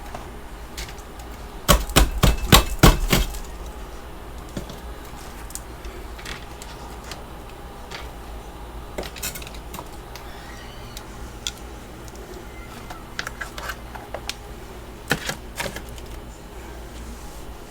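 Freezer frost being scraped and chipped loose: a quick run of about six sharp knocks about two seconds in, then scattered clicks.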